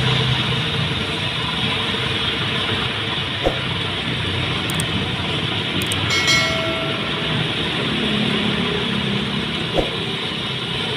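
Hot oil sizzling steadily in a large wok as sticks of roti goreng susu dough deep-fry, turned with wire skimmers. Two sharp knocks, about three and a half seconds in and near the end, as a skimmer strikes the wok.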